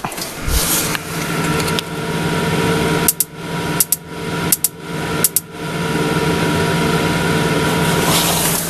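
Gas oven's spark igniter clicking in about four quick pairs midway through, over a steady hum from the range's motor after the bake cycle is started. The burner is sparking without lighting because no gas is connected.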